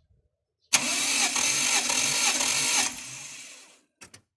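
Starter motor cranking the Toyota 1G-FE straight-six with its spark plugs out and crankshaft sensor unplugged, so it spins without firing, as in a compression test. It cranks for about two seconds, then winds down and stops, with two short clicks near the end.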